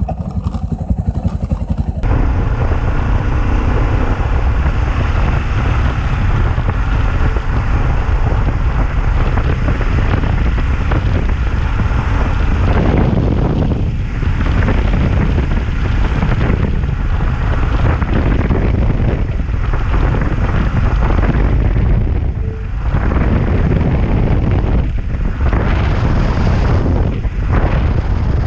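Yamaha Ténéré 660's single-cylinder engine running on the move, with wind buffeting the microphone and road noise. Over it rattles the aluminium top case, which is very noisy, more broken up and knocking in the second half.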